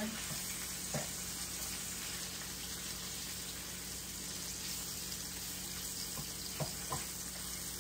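Flour-dredged beef chunks sizzling steadily as they brown in hot oil in a pan, with a light tap about a second in and two more near the end.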